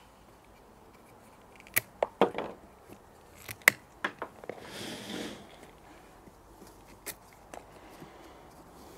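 Pruning secateurs snipping side shoots off an aubergine plant: a scatter of sharp clicks from the closing blades, with a brief rustle about halfway through.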